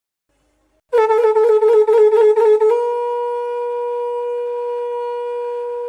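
A blown horn sounding one note, starting about a second in. It pulses rapidly, about four times a second, for nearly two seconds, then holds the note steadily for about three seconds.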